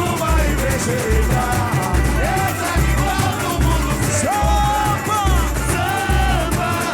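Samba-enredo sung by a lead singer and backing chorus over a samba school bateria, with deep surdo bass drums beating in a steady rhythm.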